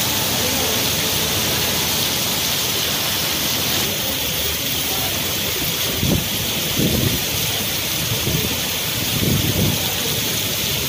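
Heavy rain pouring down steadily, with several low rumbling gusts of wind buffeting the microphone in the second half.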